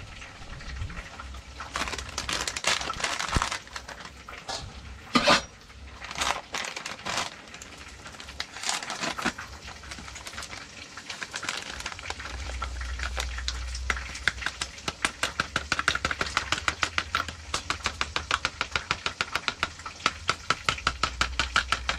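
A spoon clinking and scraping in a bowl as coconut milk is mixed: scattered clatters at first, then quick, even stirring strokes, several a second, through the second half.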